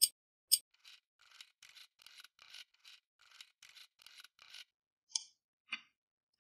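Two sharp ticks, then a run of short rasping scrapes, about three or four a second, as a desktop PC tower and its cables are handled and the case is shifted on the desk. Two brief clicks follow near the end as the glass side panel is taken off.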